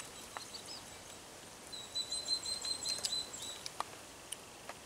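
Quiet outdoor ambience with a bird calling: a rapid run of high chirps, starting about two seconds in and lasting a little over a second, with a few faint clicks around it.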